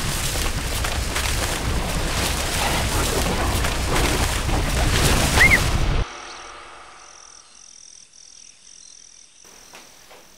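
Loud, dense rustling of cornstalks and leaves being pushed through at a run, which cuts off abruptly about six seconds in. A faint high-pitched tone then pulses on and off for a few seconds.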